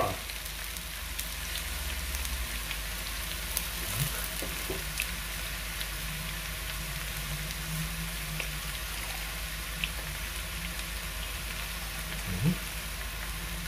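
Shredded cabbage and duck meat frying in a large pan over a gas flame: a steady sizzle with scattered small crackles.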